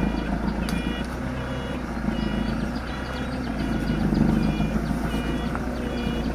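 Forklift engine running with its reversing alarm sounding a repeated series of short high beeps as the machine backs up.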